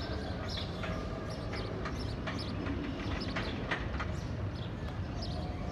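Steel inverted roller coaster train running along its track: a steady low rumble, with short high chirps scattered over it.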